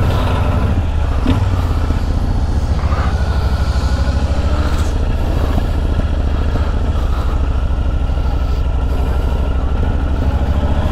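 Kawasaki VN1500 V-twin engine running steadily at low revs as the motorcycle rolls slowly away, with a fast, even beat of firing pulses.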